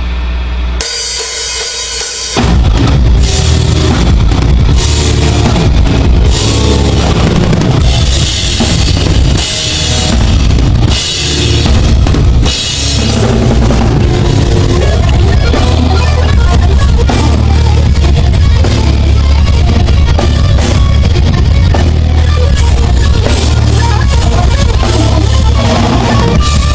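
Heavy rock band playing a song live, the drum kit loudest, with pounding bass drum and crashing cymbals. The band comes in at full volume about two seconds in.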